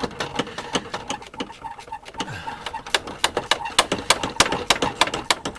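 Ratchet spanner clicking as a door bolt is worked: a run of sharp metallic clicks, sparse at first and coming faster, about four or five a second, from around three seconds in.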